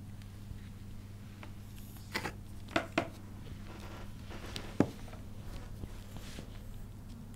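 Handling noises as hands ready a medicine syringe beside a kitten on a cloth-covered table: a few short clicks and taps, the sharpest about five seconds in, over a steady low hum.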